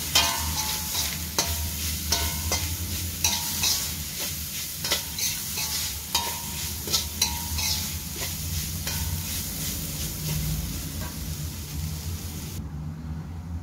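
Steel spatula scraping and clattering against a steel kadai as spiced minced chicken is stirred and fried, with a steady sizzle under sharp clicks several times a second. The sizzling cuts off suddenly near the end.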